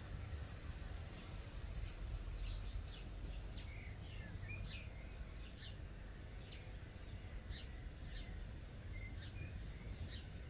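Small birds chirping: short, high calls repeated at irregular intervals, about one a second, over a steady low rumble.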